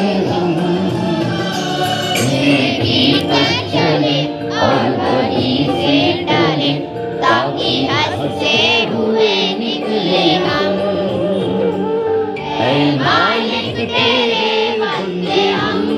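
A group of schoolchildren singing a prayer song together in unison, many voices blending.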